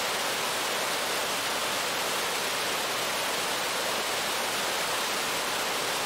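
Rearguard Falls on the Fraser River, white water pouring over rock: a steady, unbroken rush, stronger in the hiss than in the low rumble.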